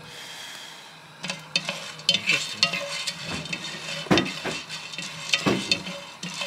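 Wooden spatula stirring coffee beans in a terracotta roasting dish during hand roasting: the beans rattle and the spatula scrapes across the clay in repeated strokes, a few every second, starting about a second in.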